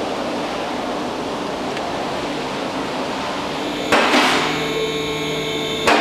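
Two-post car lift lowering a car: two loud metallic clangs with ringing, about two seconds apart, with a steady motor hum between them, after an even hiss.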